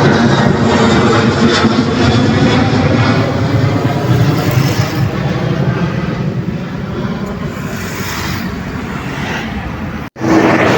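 A passing airliner's engines, loud at first and slowly fading as it moves away, cut off abruptly near the end.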